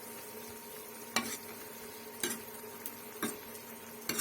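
A spoon stirring in a pan of hot oil, knocking against the pan four times, about once a second, while sugar melts and caramelises in the oil to colour the curry.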